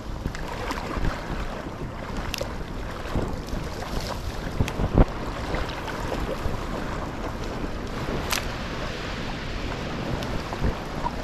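Wind buffeting the microphone over water sloshing around a small boat, with scattered knocks, the loudest about five seconds in.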